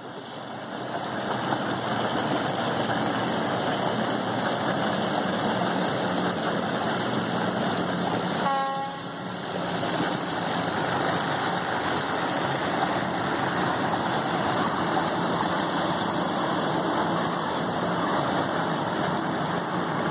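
Several outboard motors on small bass boats running steadily as the boats motor out through a lock chamber, with their wash on the water. About eight seconds in there is one short horn toot.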